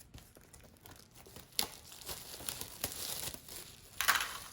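Plastic packaging crinkling and plastic container parts clicking as they are handled, with a louder rustle near the end.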